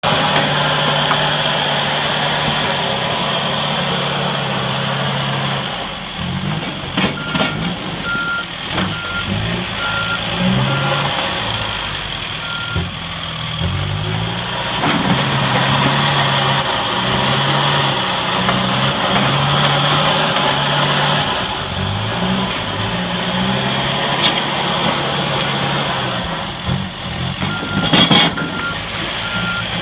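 Backhoe's diesel engine running, steady at first, then rising and falling with load. Its reversing alarm beeps in a run of even beeps from about 7 to 13 seconds in and again near the end, and a loud knock comes near the end.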